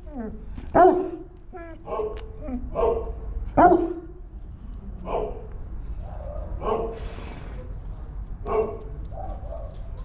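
Young Boerboel puppy barking about seven times at irregular intervals, the loudest barks in the first few seconds and the later ones weaker.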